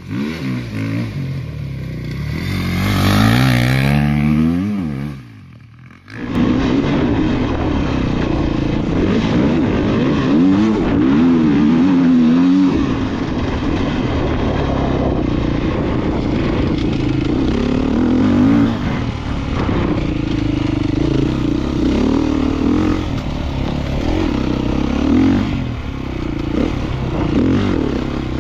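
Dirt bike engine revving hard as it is ridden over rough ground, its pitch rising and falling with throttle and gear changes, with clatter and scrapes from the bike and terrain. Near the start one long climbing rev breaks off suddenly about five seconds in, and then the riding sound picks up again.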